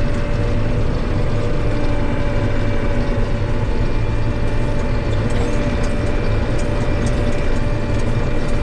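John Deere 8820 combine running steadily at working speed with its threshing and separating works turning empty, clearing out the last grain after harvest. A steady hum with a constant whine, and light rattling ticks from about five seconds in.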